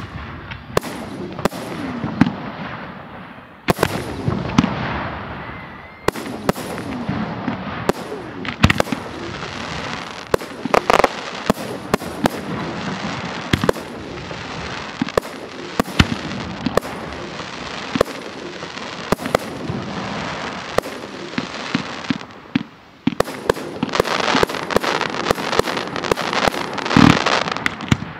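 Professional aerial fireworks display: mortar-fired shells and cakes bursting in rapid, irregular bangs over a continuous crackle, the barrage thickening in the last few seconds.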